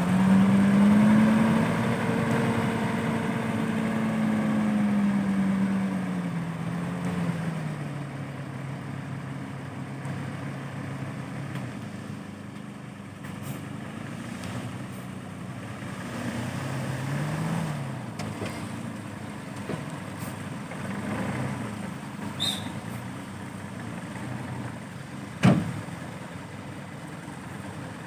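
Truck engine revving hard under load for several seconds, then its pitch falling back to a steady idle. A brief rev comes about halfway through, and a single sharp knock near the end.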